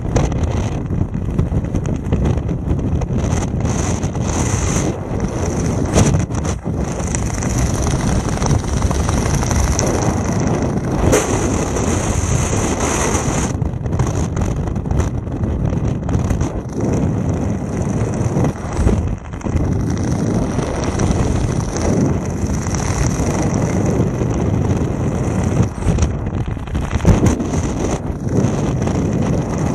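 Air rushing past a camera's microphone during parachute canopy flight: a loud, steady wind rumble, broken by uneven gusty buffets.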